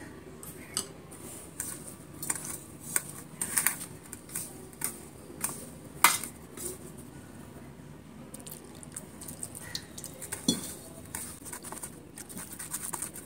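Marinade being mixed by hand in a stainless steel bowl: irregular light metallic clinks and taps against the bowl, frequent in the first six seconds and sparser after.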